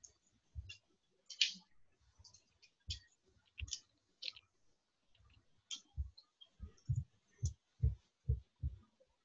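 Irregular sharp clicks mixed with dull low thumps; from about six seconds in the thumps come about twice a second.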